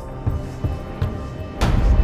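Tense soundtrack music: a low held drone with a few soft pulsing thumps, broken about a second and a half in by a sudden loud hit that leaves a heavy low rumble.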